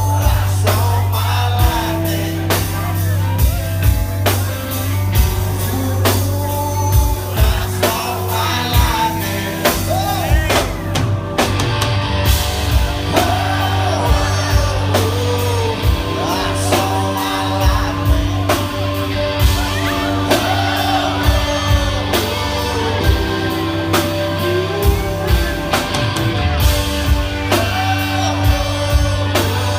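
A live rock band plays loud with drum kit, bass, electric guitar with bending notes, and singing. Drum hits mark a steady beat.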